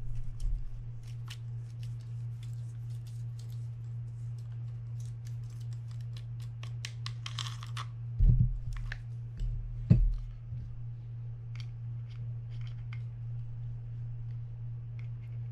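Small clicks, scrapes and taps of hands and a screwdriver working on an opened Penn Spinfisher 550SSG spinning reel, with a short scraping run about seven seconds in and two dull knocks around eight and ten seconds in, over a steady low hum.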